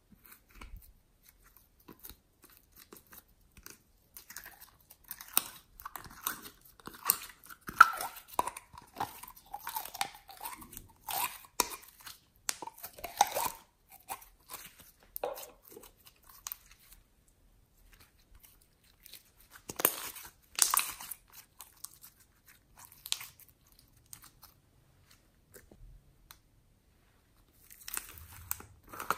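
Sticky glitter slime squeezed and worked between the fingers, giving irregular crackles and clicks. They come thickly through the first half, pause, then return in a loud burst about two-thirds of the way in and again near the end.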